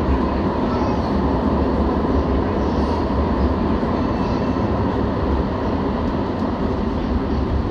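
Confederation Line light rail train running along the track between stations: a steady rumble and rolling noise with no sudden events, heard from on board.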